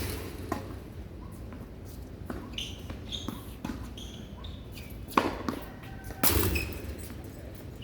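Tennis ball being struck by rackets and bouncing on the court: sharp pops near the start and again about five and six seconds in. Between them come short high squeaks of shoes on the court.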